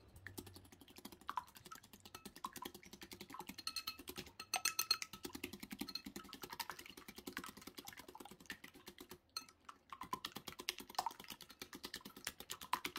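Wire whisk beating raw eggs in a ceramic bowl: rapid, steady clicking and tapping of the wire against the bowl, with a brief pause about nine seconds in.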